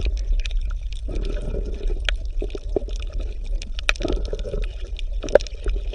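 Water bubbling and gurgling, like an underwater ambience, with a steady low rumble and many scattered small pops and clicks.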